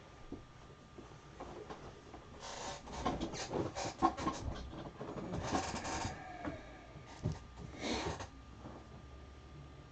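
Handling noises: irregular rustling and scraping with a few sharp clicks, coming in bursts from about a quarter of the way in until near the end, over a faint steady hum.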